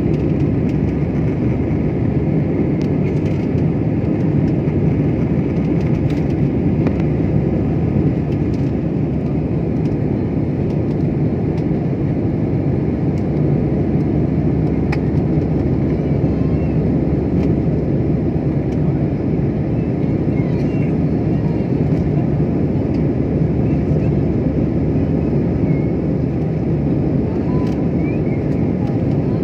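Steady jet engine and rushing-air noise inside the cabin of an Airbus A320-family airliner in flight, a constant low rumble with no change in pitch.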